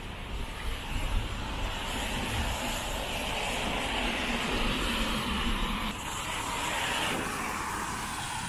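A passing vehicle: a steady rushing noise that swells for a few seconds and then fades.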